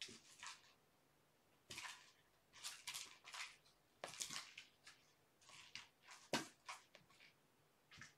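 Faint, irregular scuffling and scratching of a kitten's paws and claws as it pounces on a toy mouse, with one sharper soft knock a little past six seconds in.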